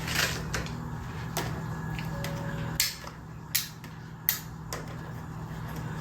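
Scattered sharp clicks and knocks of containers and food items being handled and set down while a fridge is organised, over a low steady hum that stops about three seconds in.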